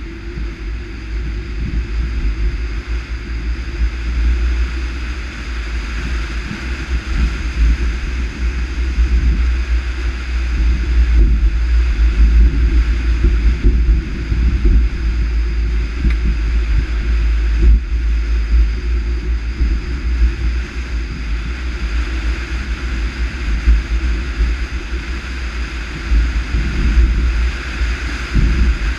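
Mercedes-Benz W124 coupe driving on a wet road, heard from a GoPro mounted outside the car: wind buffeting the microphone over a steady low rumble of road and tyre noise.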